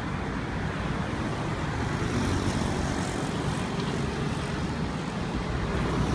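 Passing road traffic: a steady rumble of car engines and tyres. It grows a little louder near the end as a semi-truck tanker approaches.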